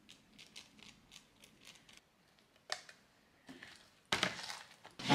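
Quiet little clicks and sticky pops from freshly made glue-and-baking-soda slime being squeezed and stretched by hand, with a short rustle near the end.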